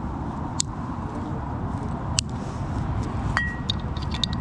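Glass beer bottles clinking as they are handled, with two sharp chinks about half a second and two seconds in. Near the end comes a sharper click at a bottle's cap, followed by a short ringing tone. A steady low traffic rumble runs underneath.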